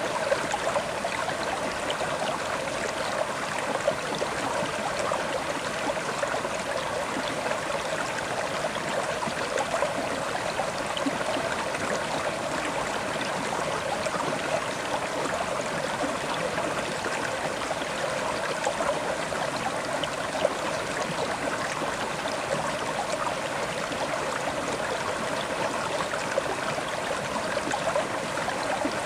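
River water flowing steadily over stones, a continuous rushing with fine splashes and gurgles.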